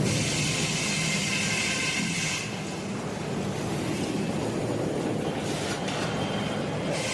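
Industrial sawmill running: a saw blade and the log carriage feeding the log make a steady mechanical din with a high whine. The whine drops away about two and a half seconds in and comes back near the end.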